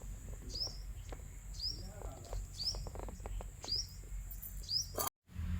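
A bird chirping over and over, one short high chirp about once a second, over a low background rumble with faint scattered clicks. The sound cuts out completely for a moment near the end.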